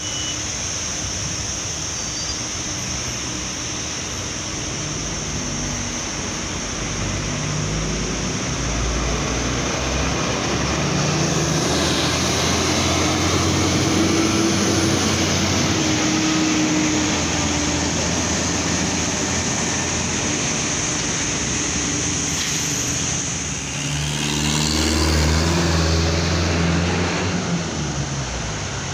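Street traffic with a heavy diesel truck pulling a low-loader trailer rumbling past, loudest about halfway through. Another heavy vehicle swells up and passes near the end.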